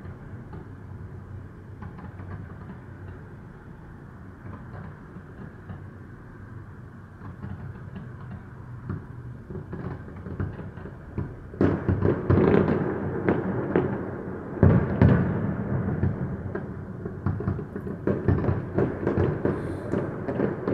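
Fireworks display heard from a distance: faint scattered pops over steady low background noise at first, then from about twelve seconds in a dense run of bangs and crackling from bursting shells.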